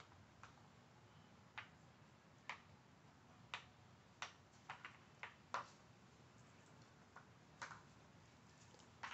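Plastic tabs and sliders of a Dog Brick treat puzzle toy clicking and clacking as a puppy noses and paws at them: about a dozen sharp, irregular clicks, bunched around the middle.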